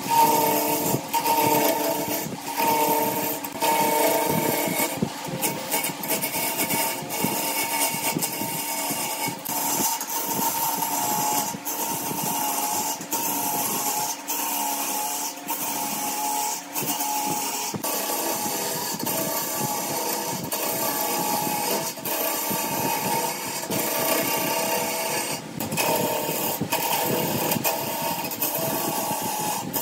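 Wood lathe running with a turning tool cutting into a spinning glued-up wooden blank: a steady motor hum under a continuous hissing scrape of the cut.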